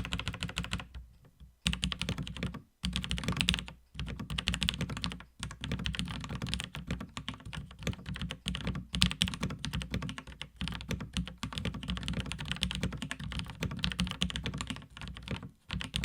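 Typing on a Unitek K-160 mechanical keyboard with vintage Cherry MX Black linear switches: a fast, continuous run of keystrokes, broken by a few brief pauses.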